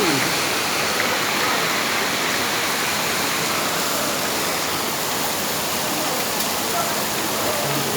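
Heavy rain falling: a steady, even hiss of rainfall.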